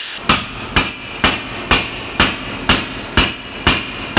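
Hammer blows on metal in a steady rhythm, about two a second, each with a ringing metallic note.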